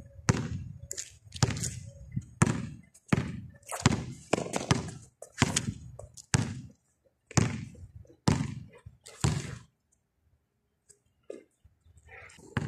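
A basketball being dribbled on a concrete court, bouncing about once every three-quarters of a second. The dribbling stops about nine and a half seconds in, and after that there is only a faint tap.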